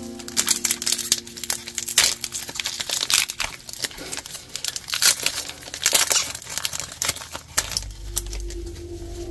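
A booster pack's wrapper being crinkled and torn open, a dense run of sharp crackles lasting about seven seconds. Background music comes back in near the end.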